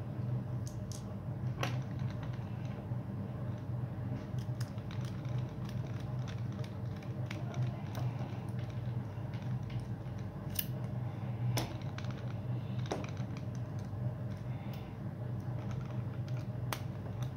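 A hex screwdriver turns small screws into the pull-starter housing of a 2.5cc model nitro engine, giving scattered sharp metal clicks and taps over a steady low hum.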